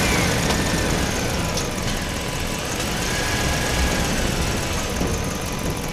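Engine running steadily with a deep rumble, and a faint whine that rises and falls in pitch near the start and again about three seconds in.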